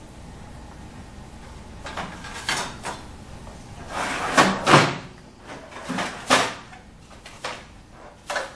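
Plastic paper tray of an office multifunction printer being slid and handled: a string of separate clunks and knocks, the loudest a little past four seconds in.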